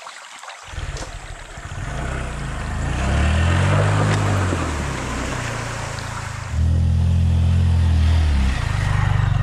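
A motorcycle engine comes in abruptly just under a second in, then is revved up twice, dropping back in between, and settles into steady running near the end.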